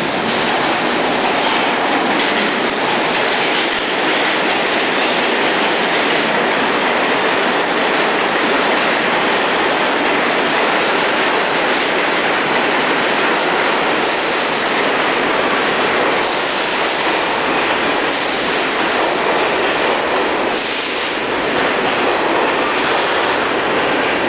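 New York City subway train (R46 cars) running along the platform in an underground station: a loud, steady rumble of steel wheels on rail with clickety-clack over the rail joints and brief hissing in the second half.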